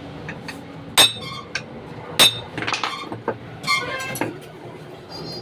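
Hammer blows on steel parts of a propeller shaft's universal joint, worked on to change the cross: two loud ringing strikes about a second and two seconds in, with lighter metallic knocks and clinks between and after.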